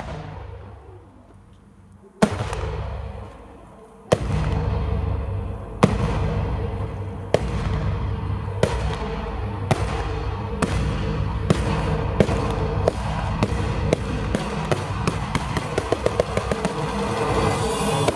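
Fireworks display going off: sharp bangs at first about two seconds apart, then about one a second, quickening into rapid volleys of cracks near the end, over a continuous crackling rumble.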